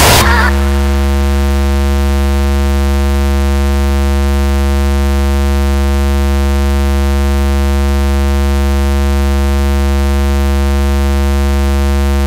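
Loud, steady low electronic buzz: a single droning tone held without any change, taking over as the busy breakcore music drops out at the start.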